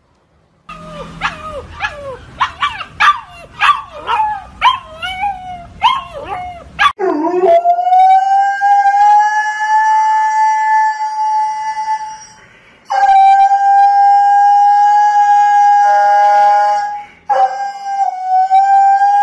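About a dozen short dog yips that slide up and down in pitch, then a Siberian husky howling in three long, steady notes, each held for several seconds.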